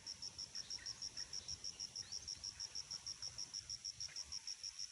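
An insect chirping in a steady, fast rhythm: high-pitched pulses, about eight a second.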